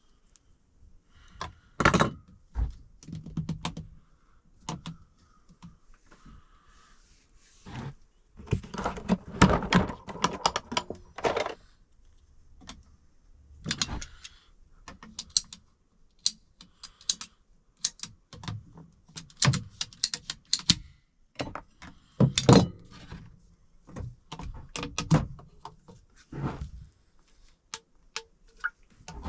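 Irregular clicks, knocks and clatter of PVC drain pipe, fittings and hand tools being handled while a condensate drain line is cut and fitted, with a denser run of clatter about eight seconds in.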